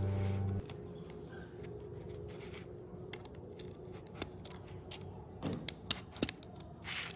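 Background music cuts off under a second in. Then a faint steady hum, with a few light, sharp clicks and taps in the second half, several close together.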